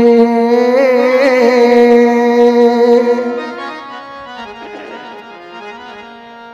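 Male singer performing Odia devotional song over a harmonium, holding one long sung note with slight wavering. About three seconds in the voice fades out, leaving the harmonium sounding softly with steady held notes.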